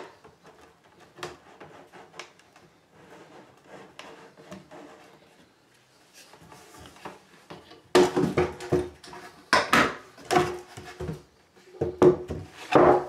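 Cut-out square of laminate chipboard worktop being worked loose and lifted out of the hob opening, with quiet rubbing and clicks at first, then from about two-thirds in a run of loud, irregular wooden knocks and scrapes.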